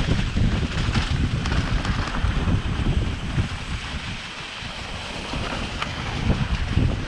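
Wind buffeting the microphone over the rumble and rattle of a mountain bike descending a dirt trail, its tyres and frame jolting over bumps; the noise eases briefly about four seconds in.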